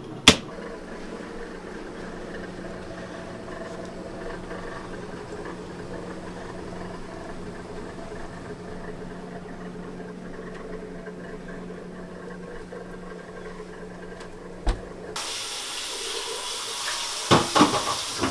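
A steady low hum, then about fifteen seconds in a kitchen faucet is turned on and water runs into a stainless steel sink with a steady hiss, with a few knocks near the end.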